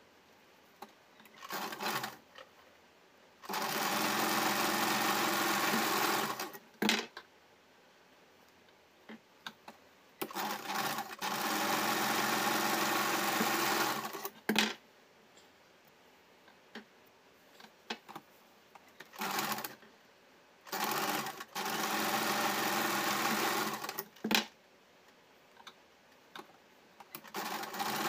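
Electric domestic sewing machine stitching fabric strips together, running in several stop-start runs of one to four seconds each. Short clicks fall in the pauses between runs as the work is repositioned.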